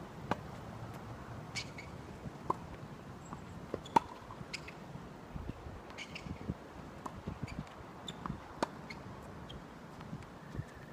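Tennis balls struck with rackets during a rally: a serve hit just after the start, then sharp, irregular racket-on-ball strikes and bounces. The loudest strike comes about four seconds in, from the player nearest the microphone.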